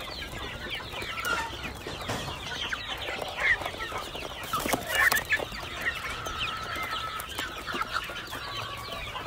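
A large flock of Fayoumi chickens clucking and calling over one another while feeding, a dense chorus of short overlapping calls with a couple of louder calls near the middle.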